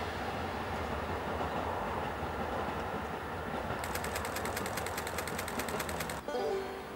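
Diesel limited express train, a KiHa 189 series Hamakaze, running across a viaduct with a steady low rumble. From about four seconds in, a fast, even ticking joins it. Shortly before the end, the train sound cuts off and music comes in.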